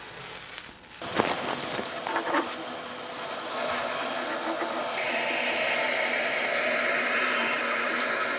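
Turkish coffee heating in a brass cezve, hissing and fizzing as the foam rises toward the boil, the hiss growing stronger about halfway through. A few light clicks and knocks come in the first couple of seconds.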